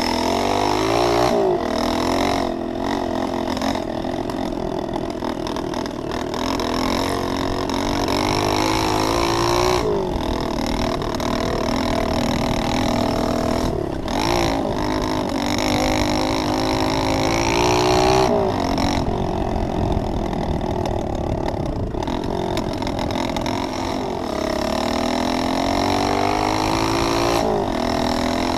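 Pit bike engine running close up while riding, its pitch climbing as it accelerates and dropping back several times.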